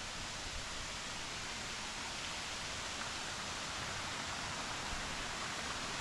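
Steady rushing of water falling at Katiki waterfall, getting gradually a little louder.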